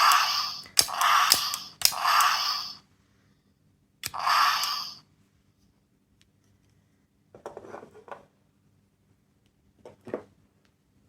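A sound-making capsule toy pressed repeatedly, playing a short noisy sound effect four times, each starting with a click of the button. Fainter rattling and clicking of the toy being handled follows later.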